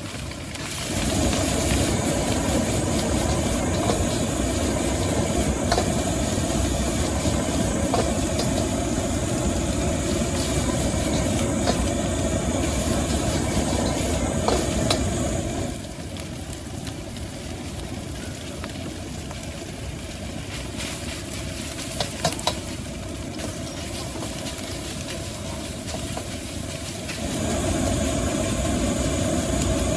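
Stir-frying in a wok over a gas wok burner: the burner running steadily under food sizzling and being tossed. It is loud for the first half, drops to a quieter hiss about halfway, and comes back loud near the end, with a few sharp clacks of the spatula on the wok about two thirds through.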